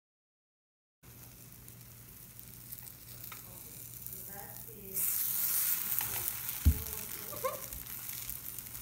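Corn batter pancakes sizzling in oil in a nonstick frying pan, starting after about a second of silence. The sizzle jumps louder about five seconds in as a pancake is flipped with a metal spatula, and there is a single sharp knock of the spatula against the pan shortly after.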